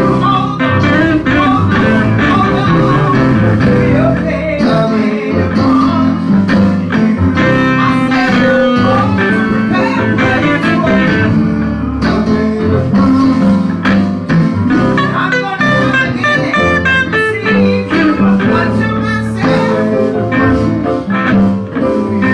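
Live church band music led by a guitar, over a steady bass line and drum hits.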